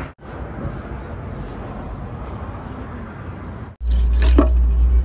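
Steady background noise that breaks off abruptly twice; near the end a much louder low rumble starts, with one short sharp sound over it.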